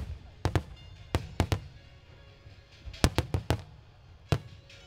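Starmine fireworks display: about a dozen sharp firework bangs in quick clusters, one at the start, a few within the first second and a half, a rapid run of five around three seconds in and one more past four seconds, each with a short low rumble after it.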